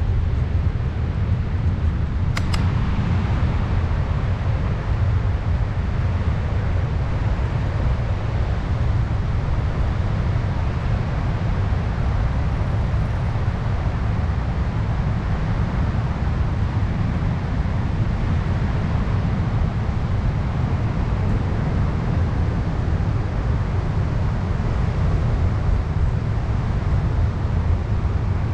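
Steady wind rumble on a GoPro Hero 9's microphone while riding a bicycle, with the bike's rolling noise underneath. A single sharp click about two seconds in.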